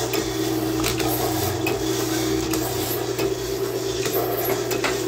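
Antique power hacksaw running: its old washing-machine motor hums steadily while the blade strokes back and forth through the workpiece, with light clicks recurring about once a second.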